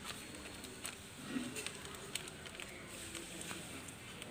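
Faint, scattered crinkles and ticks of a thin plastic bag being handled while string is tied around its neck.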